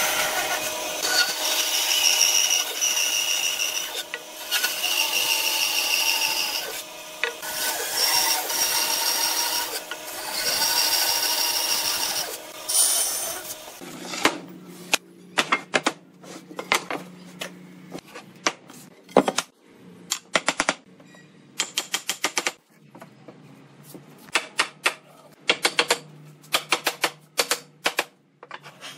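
Woodworking power tool working wood, running in several spells with a steady high whine for about fourteen seconds. It then stops, leaving a string of sharp clicks and knocks.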